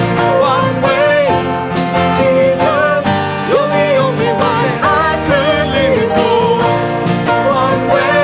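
A church worship band playing a slow closing song: guitar over held chords, with a wavering melody line on top.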